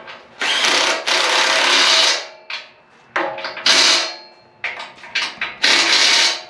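Cordless impact wrench running in bursts while driving the winch mounting bolts: a long run of nearly two seconds, several short blips, then two more runs, the last near the end.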